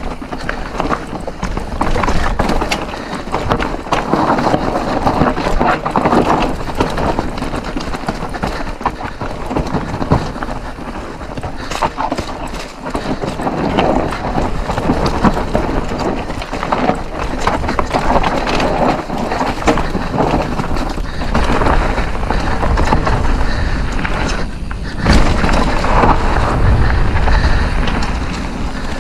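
Mountain bike riding fast down a dirt singletrack: knobby tyres crunching over dirt, rocks and roots, with the bike's frame and parts clattering over many small knocks and bumps. Wind buffets the microphone, heaviest near the end.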